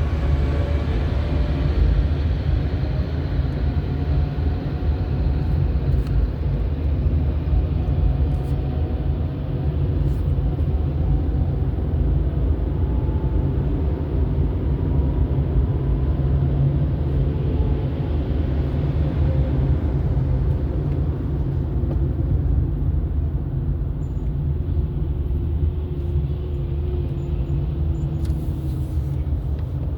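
A car driving: steady low rumble of engine and road noise, with a faint engine tone that slowly drifts up and down in pitch.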